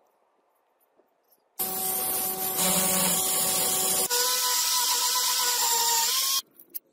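A handheld rotary tool with a sanding drum running and grinding a cast brass knuckle guard: a steady high whine over a hissing grind, starting about a second and a half in, changing abruptly partway through, and cutting off suddenly near the end.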